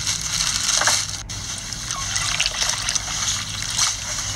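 Liquid poured from a metal bowl onto grated coconut in a metal basin, trickling and splashing.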